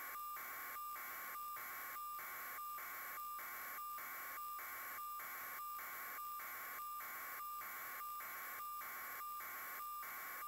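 Electronic static: an even hiss with a steady high tone through it, broken by short regular dropouts about five times every three seconds.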